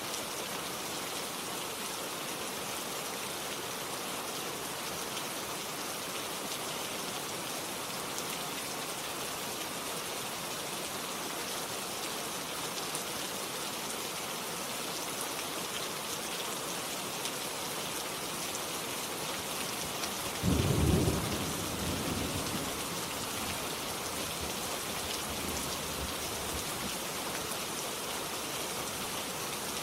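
Steady rain falling, an even hiss throughout. About two-thirds of the way through a short, loud clap of thunder breaks in low and rumbles away over a couple of seconds.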